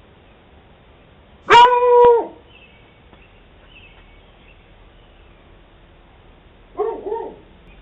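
A dog barking: one long bark about a second and a half in, then two short barks near the end.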